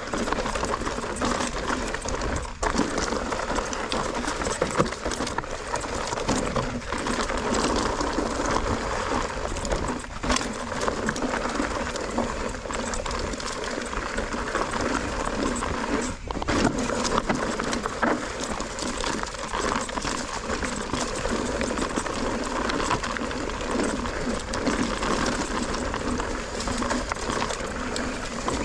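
Mountain bike rolling over a rough trail: steady tyre noise on dirt and stones with a constant rattle from the bike and a few sharper knocks.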